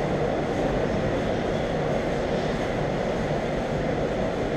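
Steady droning room noise of an indoor ice arena, even in level with no distinct events.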